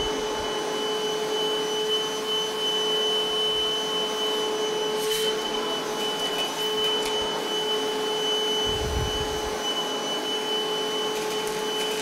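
Milwaukee M18 2-gallon cordless wet/dry vac (model 0880-20) running steadily, a motor hum with a steady high whine, as it sucks sawdust off a bench mat through its hose. A brief low thump about nine seconds in.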